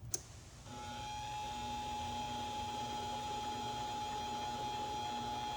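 Two sharp clicks, then about a second in a mini-lathe's motor starts and runs steadily with an even whine.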